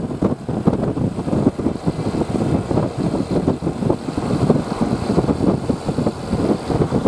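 Bus engine running with a rough, uneven rumble.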